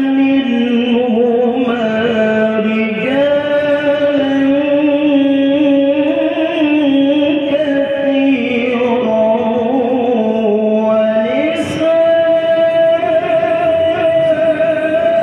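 Male qari reciting the Qur'an in a melodic tilawah style into a microphone: long, ornamented held notes that step up and down in pitch, with a short break about eleven and a half seconds in before a new phrase climbs to a higher held note.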